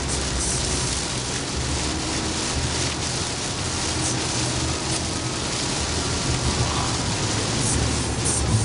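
Heavy rain hitting a moving car's windshield and roof, heard from inside the cabin, over a steady low rumble of tyres on the flooded road.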